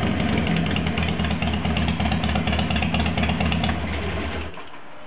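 2007 Harley-Davidson Sportster 883's air-cooled V-twin idling in neutral through straight-through Vance & Hines Straightshots slip-on mufflers, quite loud. Its exhaust leak has been fixed with a new crossover gasket. The engine sound stops abruptly about four and a half seconds in.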